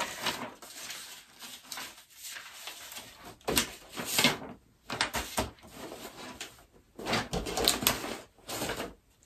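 Sheets of printed paper rustling and crackling as a pile is leafed through and pages are lifted, in short irregular bursts with a few louder shuffles.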